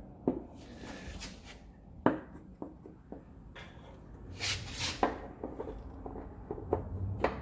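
Hand fumbling with the turn-signal bulb socket behind a car headlight housing: plastic scraping and rubbing, with a few sharp clicks and knocks.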